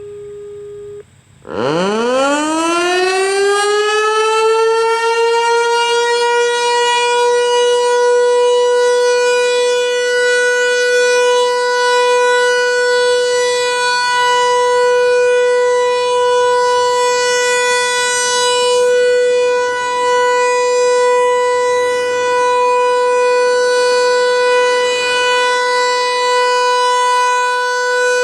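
American Signal Corporation T-128 outdoor warning siren starting up about a second and a half in. It winds up steeply in pitch over a few seconds, then holds a steady alert tone.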